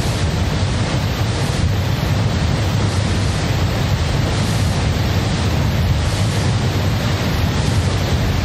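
A loud, steady wall of rushing noise with a deep low rumble and no clear pitch or beat, from an experimental noise piece. The hiss swells slightly about once a second.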